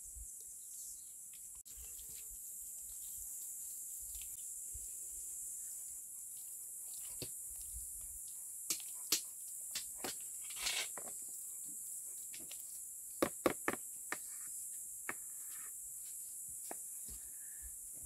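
Steady high-pitched insect chirring in the background, with scattered sharp clicks and short scrapes of a metal spoon against a plastic strainer bowl as apricot pulp is pressed through it. The clicks come in two clusters, about halfway through and again a few seconds later.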